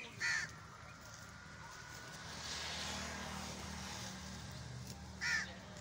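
A crow caws twice, once just after the start and once near the end, over a low steady rumble of distant traffic whose hiss swells in the middle as a vehicle passes.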